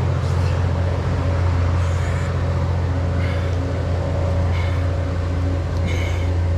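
A steady low engine drone runs throughout, with a few brief faint higher sounds on top.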